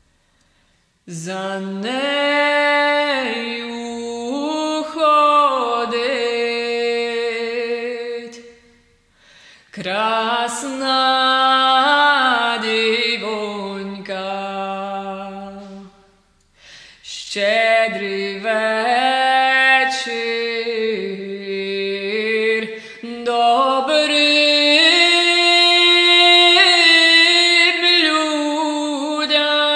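A woman singing solo and unaccompanied, in three long melodic phrases with short breaks between them. The last phrase ends on a long held note.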